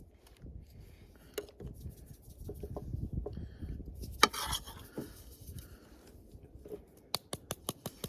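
Cookware and utensil handling: light clinks and knocks of dishes and containers, ending in a quick run of clicks.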